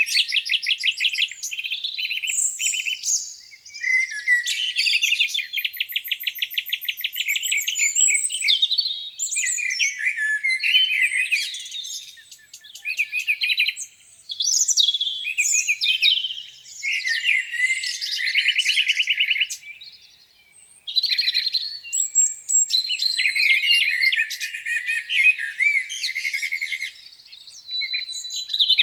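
Songbirds singing in a spring morning chorus: several overlapping songs of quick chirps, warbles and rapid trills, with two brief lulls.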